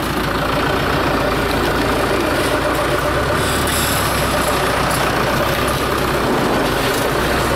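Farm tractor's diesel engine running steadily at an even speed, without revving.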